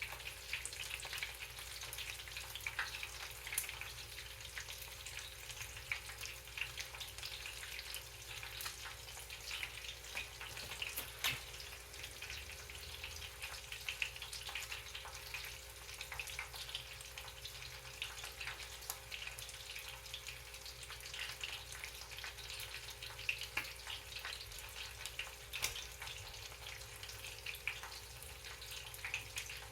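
Cornflake-breaded chicken wing drummettes frying in shallow hot oil in a pan: a steady sizzle with constant small crackles and pops.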